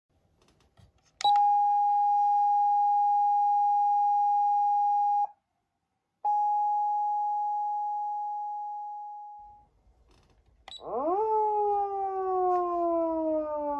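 Clarion A-600F siren amplifier sounding a steady single-pitch tone for about four seconds, which cuts off abruptly, then the same tone again for about three seconds, fading away. Near the end a siren wail sweeps up quickly and then slides slowly down in pitch.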